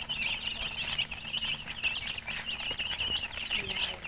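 Many chicken chicks chirping together, a steady stream of high, overlapping peeps with no break.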